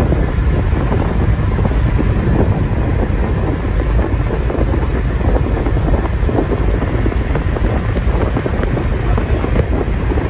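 Steady road and wind noise of a car travelling at speed, heard from inside the cabin, with wind buffeting the microphone.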